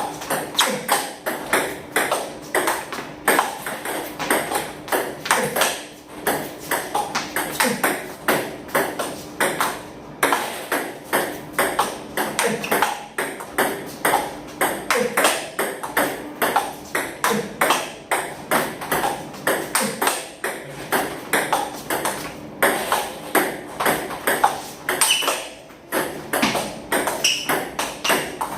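Table tennis balls being hit back and forth in a forehand cross-court block drill: sharp ball-on-racket and ball-on-table clicks, several a second, in a quick, steady rhythm.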